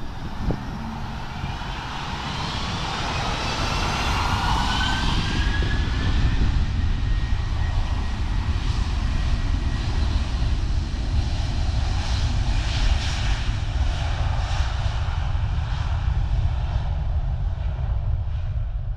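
Airbus A330-300 jet engines at takeoff thrust on the takeoff roll. Rising whines in the first few seconds as the engines spool up build into a steady, loud, uneven roar, and its high end fades near the end as the aircraft moves away.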